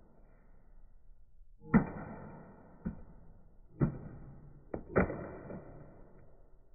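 Coolpad 3310A phone dropped corner-first onto a concrete floor, landing with sharp hard clacks and a brief ringing rattle. There are three main hits about a second apart, with lighter knocks between them.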